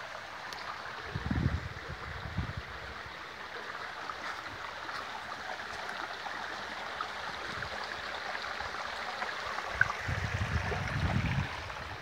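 Shallow stream running over flat rock slabs: a steady rush of water. Brief low rumbles on the microphone come about a second in and again near the end.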